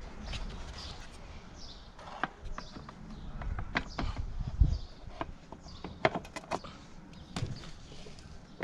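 Scattered clicks, clinks and knocks of car parts and tools being handled, with a heavier thump about four and a half seconds in.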